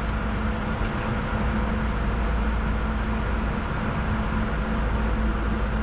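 Steady cabin noise on the flight deck of a Bombardier Challenger 605 jet in descent: an even rush of air with a low hum and a steady tone underneath.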